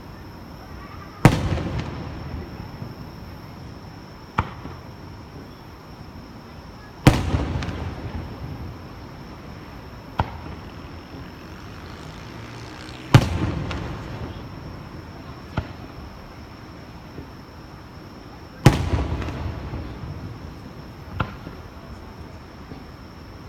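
Aerial fireworks going off: four heavy booms about six seconds apart, each with a long rumbling, crackling tail that fades out. A smaller, sharp report comes about three seconds before each boom.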